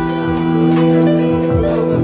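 Live rock band playing an instrumental passage: electric guitars ringing out sustained chords over a steady drum beat.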